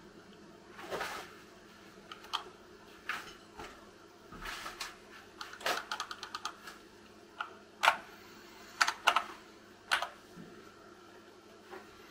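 A dozen or so scattered, irregular keystrokes on a hand-wired Dactyl Manuform split keyboard with silicone-lubed Gateron Brown tactile switches, single clacks and short clusters rather than a steady typing run, a few sharper ones in the second half.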